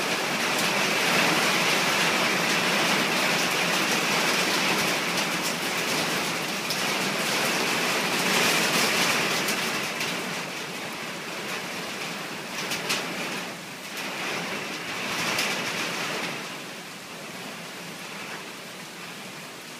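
Heavy rain pouring down onto a yard and a flooded concrete path, easing off noticeably over the second half.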